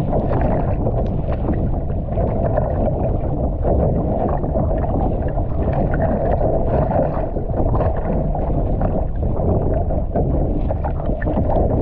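Choppy sea rushing and slapping against a kayak's hull, with splashes from the paddle strokes, over a steady low rumble of wind on the microphone.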